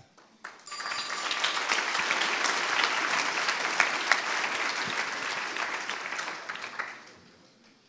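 Audience applauding, starting about half a second in, holding steady, then dying away near the end.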